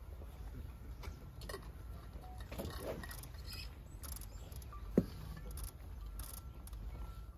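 A single sharp knock about five seconds in, over a steady low rumble and a few faint scattered ticks.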